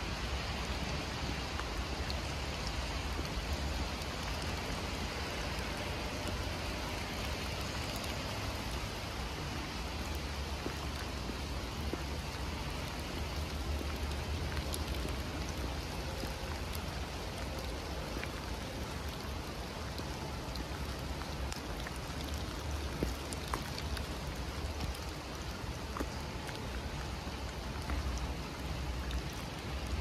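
Steady heavy rain falling in a forest, with scattered sharp drip ticks and a low rumble underneath.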